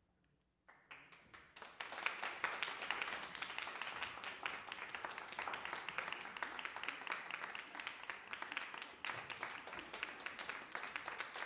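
Audience applauding: a few scattered claps about a second in, building quickly into steady applause.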